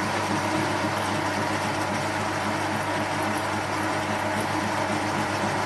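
Metal lathe running steadily under coarse power feed, turning down the end of a water pipe; an even machine drone with steady tones that does not change.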